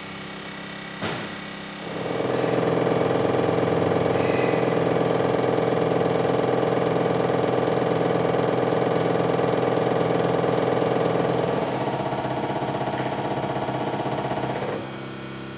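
Hartridge Toledo HEUI Master injector test bench running an automatic test on a Powerstroke 7.3 HEUI injector: after a single click, it starts about two seconds in with a loud, fast mechanical chatter. The chatter drops slightly in level about twelve seconds in and stops near the end.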